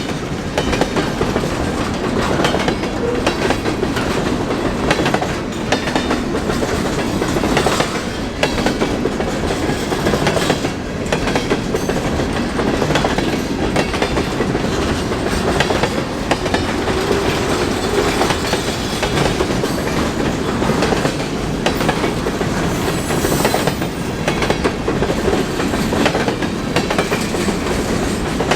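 Freight train cars rolling past at close range: a steady rumble of steel wheels on rail, with frequent irregular clicks and clacks over the track.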